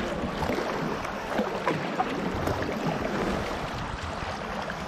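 Kayak paddle strokes: the blades of a double-bladed paddle dipping and splashing, with water sloshing and trickling around the hull in a steady wash.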